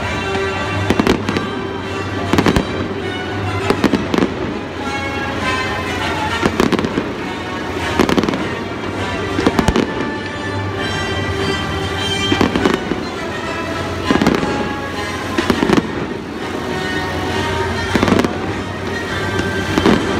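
Fireworks going off in sharp bangs every second or two, over steady music.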